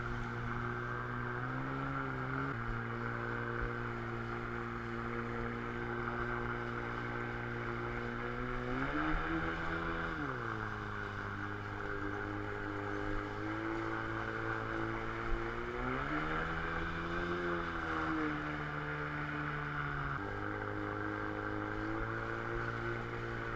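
Outboard water-jet motor on an inflatable jet boat running through shallow rapids, revving up twice, about nine seconds in and again about sixteen seconds in, and easing back each time. The rush of the river's whitewater runs underneath.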